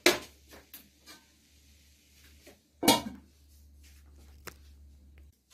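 Steel spoon clinking and scraping against a kadhai as poha is stirred, with a few light clinks. About three seconds in comes a single louder metal clatter as a stainless-steel lid is set down on the kadhai.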